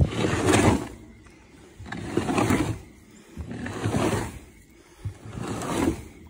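Galvanized arm of an Osborne Big Wheel hog feeder pushed by hand around the feed pan, scraping and rustling through the feed four times, about every two seconds. It is being spun to let feed run down from the hopper and cover the bottom of the pan.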